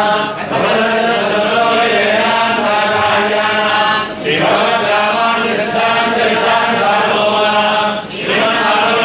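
Male voices chanting a temple hymn in a steady, sustained recitation, with short breaks for breath about every four seconds.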